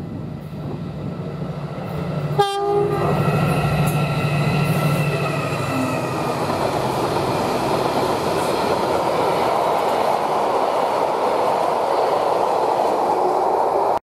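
Class 70 diesel-electric freight locomotive passing through a station: a short horn blast about two and a half seconds in, then the engine's running note fading as it goes by. The long train of hopper wagons follows with a steady rumble and clatter of wheels over the rails, which stops abruptly near the end.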